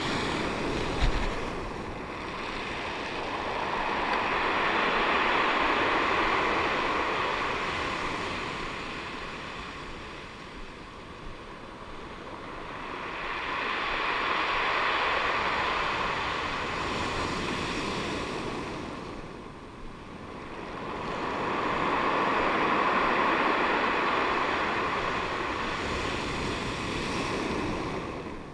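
Surf breaking and washing on a pebble beach, the rush swelling and fading three times, about every eight to nine seconds. A short knock comes about a second in.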